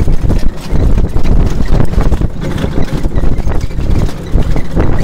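Horse-drawn marathon carriage rolling over a grass field behind a pair of Mérens horses: a loud, continuous rumble of wheels, rattling harness and carriage, and hoofbeats, with irregular knocks throughout.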